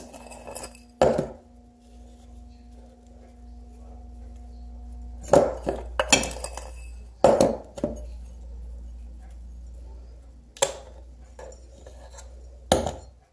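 A measuring spoon clinking and knocking against a ceramic bowl and plate while drink bomb mix is scooped, packed and popped out: a handful of short, sharp, separate knocks spread across several seconds.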